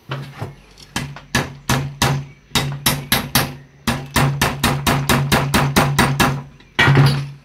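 A hammer striking metal again and again, driving a greased piece of handbrake-cable housing into its terminal held in a bench vise. About twenty sharp blows, slow and uneven at first, then quicker at about four or five a second, ending with a louder, longer clatter.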